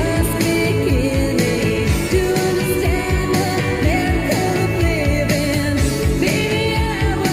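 Background pop-rock song with a male lead voice singing over a steady drum beat.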